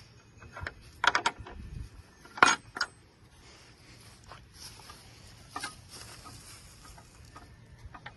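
Metal gate hardware on a wooden farm gate being handled: a quick run of clinks and knocks about a second in, the loudest sharp clink about two and a half seconds in with another just after, then a few fainter taps.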